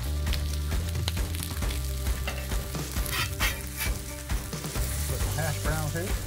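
Sausage patties and shredded hash browns sizzling on a charcoal-heated steel griddle, with a metal spatula scraping and tapping the cooking surface now and then.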